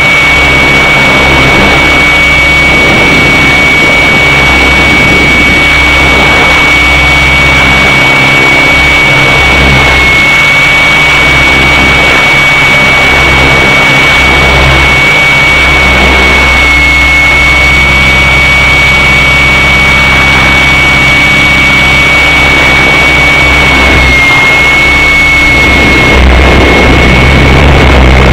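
Align T-Rex 600 radio-controlled helicopter running in flight, heard from a camera mounted on it: a loud, steady high whine from the motor and gearing over the rotor's drone, dipping briefly in pitch a few times.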